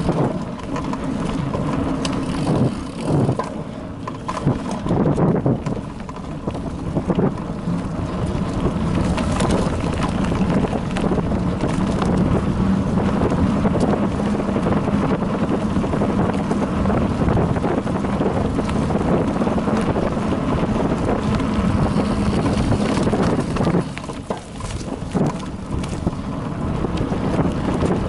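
Wind noise on the microphone of a bike-mounted action camera, mixed with the tyre rumble and rattling of a bicycle riding over a bumpy dirt forest trail at around 17 km/h. The noise is steady, with a low hum and frequent small knocks and clicks from bumps.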